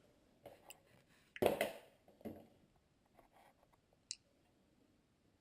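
Bottom panel of a white MacBook being lifted off and handled: a few light clicks and one louder knock about a second and a half in.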